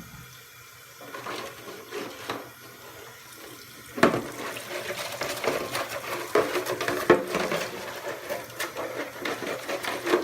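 Tap water running and splashing as a plastic RC car body is washed with mild soap in a sink, with light clicks of the body being handled. About four seconds in the water gets much louder and busier, with rubbing and splashing against the plastic.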